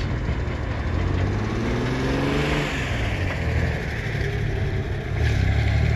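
A road vehicle passes by: its engine and tyre noise swell to a peak about halfway through and fade, with the engine pitch gliding as it goes. A low engine hum grows louder about five seconds in.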